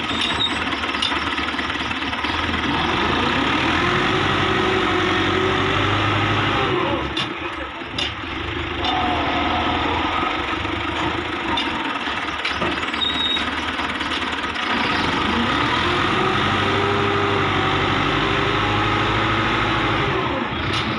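Fiat tractor's diesel engine working under load as it drags a weighted rear leveling blade through loose sand, its revs rising and falling twice, with a brief drop in level about eight seconds in.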